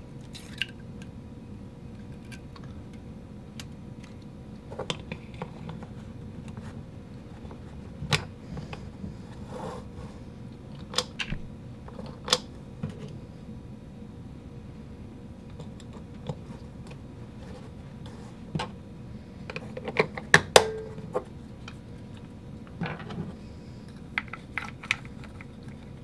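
Small plastic and metal parts clicking and knocking as they are handled and fitted back together during reassembly, in scattered single taps with a quick cluster of clicks about twenty seconds in, over a faint steady hum.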